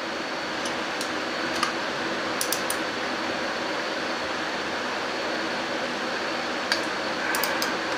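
A hand ratchet and socket working an old spark plug loose by hand, giving a few light clicks in small clusters, over a steady mechanical hum like a fan.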